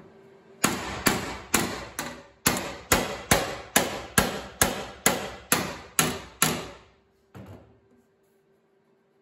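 Hand hammer striking a steel sheet-metal patch panel: about fourteen sharp blows at a little under two a second, each ringing briefly, then one lighter knock about a second later. The blows are shaping the patch panel to fit the car's body.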